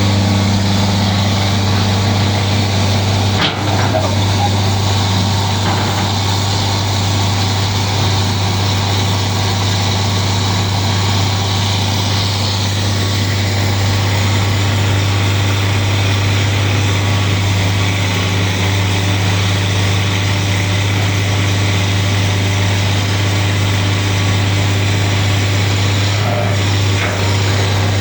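An engine running steadily at a constant speed, with a deep hum and a broad mechanical noise over it; a single brief knock about three and a half seconds in.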